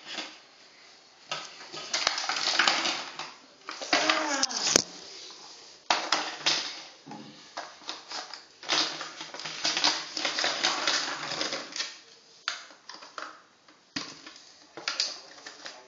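Rustling, clicking and scraping of small plastic toy figures and their plastic packaging being handled and pushed back into the box, in irregular bursts with short pauses.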